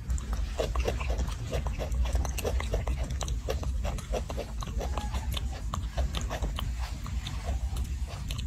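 Newborn macaque suckling at its mother's nipple: a quick, irregular run of soft wet smacking clicks, over a steady low rumble.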